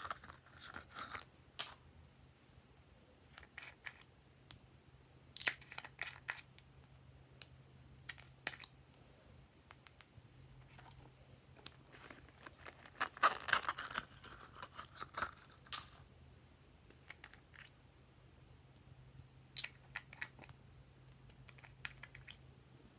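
Hands handling small plastic toys and a zippered plastic purse: scattered clicks, rustles and crinkly scrapes, busiest about five seconds in and again around thirteen to fifteen seconds.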